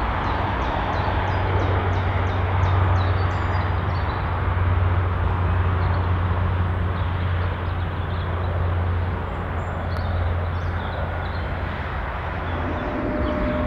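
Distant twin-engine turboprop airliner rolling out along the runway after touchdown: a steady low drone with a rushing noise over it. Small birds chirp in a quick run of high notes near the start and a few more about ten seconds in.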